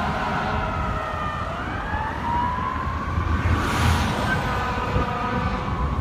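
Fire truck siren wailing as the apparatus drives off in traffic: its pitch falls, rises again about two seconds in, then slowly winds down, over low city traffic rumble, with a brief hiss about halfway through.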